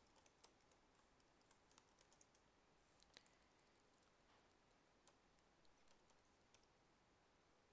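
Near silence with a few faint, scattered clicks of keys on a computer keyboard.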